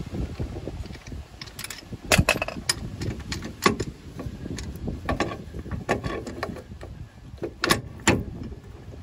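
Irregular metallic clicks, clinks and knocks as a crude home-made bushing press tool is loosened off and handled, after pushing the rubber insert out of a lower shock bushing.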